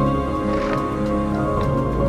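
Background music with slow, long-held notes.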